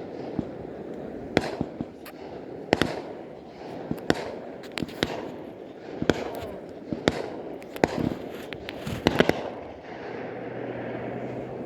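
Fireworks exploding: an irregular run of sharp bangs, several a second at times, that stops about nine and a half seconds in, leaving a steady background din with a low hum.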